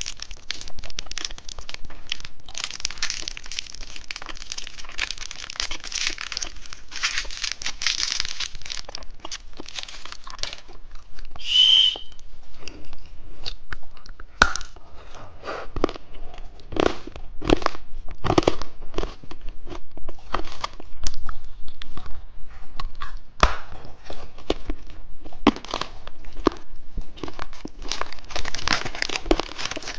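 Plastic candy wrappers being torn open and crinkled by hand, with a run of sharp separate clicks and taps in the middle stretch.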